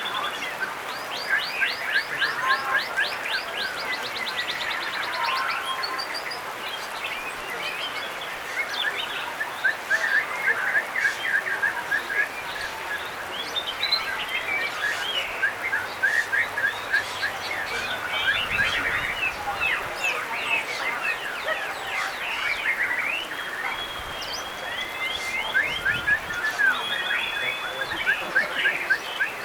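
Several white-rumped shamas (murai batu) singing over one another: a steady stream of overlapping chirps, rattling trills and whistled phrases, with a fast ticking trill about a second in.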